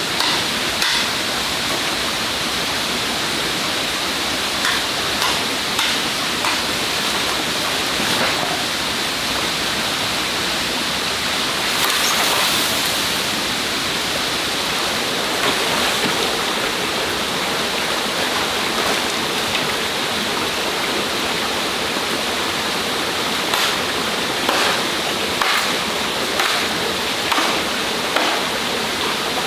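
Stream water running steadily, with scattered short clicks over it, more of them in the last few seconds.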